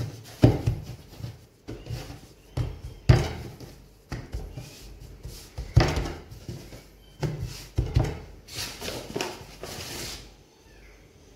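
Hands pressing and pushing bread dough on a floured tabletop to knock out the air after its rise: a run of irregular dull thumps, with a brief rubbing swish near the end.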